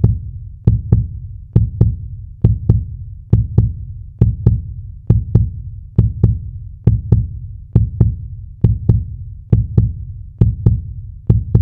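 Heartbeat sound effect: a steady lub-dub double beat, each beat a low thud with a sharp click, at about 68 beats a minute.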